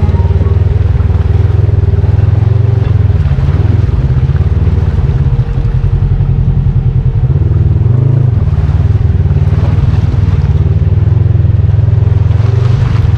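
Off-road vehicle engine running loud and steady, the revs varying only a little.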